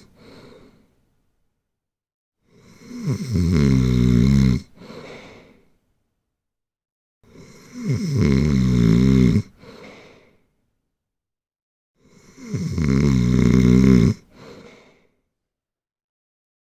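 Snoring: three long, loud snores about four and a half seconds apart, each followed by a short, softer breath out.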